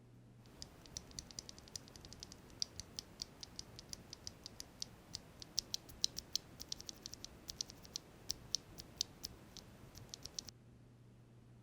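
Typing on a mechanical keyboard: an aluminum Novelkeys NK87 fitted with linear franken switches (Akko Jelly Black stems in Cherry MX Black Hyperglide housings) and GMK keycaps, giving a run of quick, uneven keystroke clicks. The typing starts about half a second in and stops suddenly near the end.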